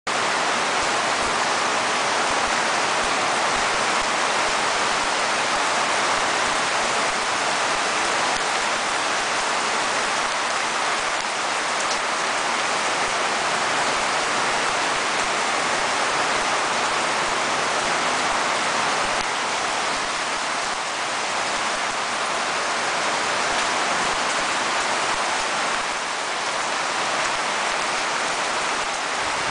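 Heavy rain pouring down steadily, a dense, even hiss that neither builds nor fades.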